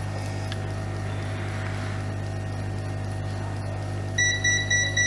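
Hot air rework gun blowing steadily on a TV power-supply board to desolder the shorted power IC, a steady hum and rush of air. About four seconds in, a quick run of high electronic beeps starts, about four a second.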